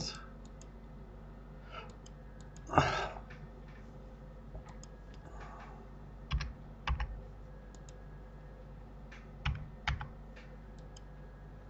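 Scattered clicks of a computer mouse and keyboard, a single click or a pair every second or two, with one louder short sound about three seconds in.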